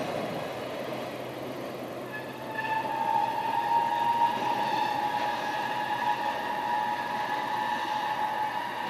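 Freight train of tank wagons running on the rails and fading away into the distance. From about two and a half seconds in, a steady high whining tone sets in and holds.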